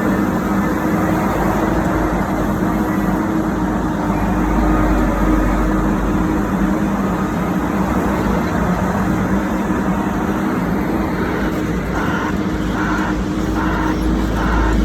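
Bauer BG 20 H drilling rig's diesel engine running steadily with a loud low hum. A regular beeping starts near the end, about two beeps a second.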